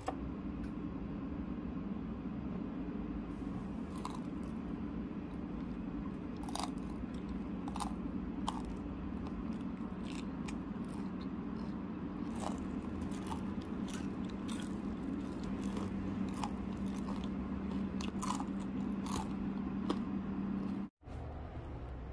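Crisp lotus root chips crunched between the teeth, sharp crunches at irregular intervals over a steady low hum. The sound drops out for a moment near the end.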